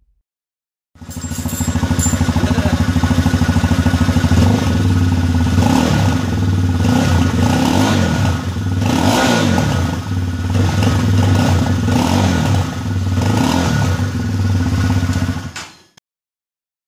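UM Renegade Sport S 300's single-cylinder engine running at idle through its stock silencer, starting about a second in. From about five seconds in it is blipped with a series of short throttle revs, each rising and falling, before the sound cuts off suddenly near the end.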